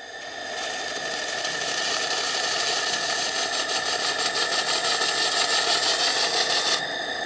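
IPG LightWELD XR handheld fiber laser welder running a bead on 11-gauge mild steel at 1,000 W: a steady sizzling hiss with fine crackle, over a constant high whine from the machine. The sizzle builds over the first second or two and its hiss cuts off shortly before the end.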